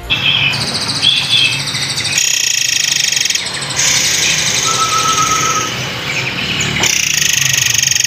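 Songbirds singing rapid, high-pitched trills and chirps, with the song changing abruptly every second or few as if spliced from several recordings.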